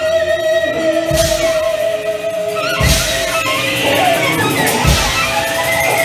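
Improvised experimental music from a quartet of cello, percussion, guitar and electronics: a long steady tone held over shifting noisy textures, with deep thuds about a second in, near three seconds and near five seconds.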